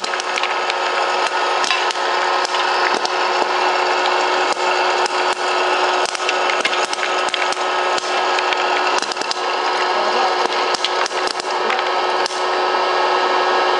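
Hot-air popcorn popper running: its blower fan hisses steadily with a motor hum while kernels pop in quick, irregular cracks as the popcorn is blown out into the bowl. The popping thins out near the end.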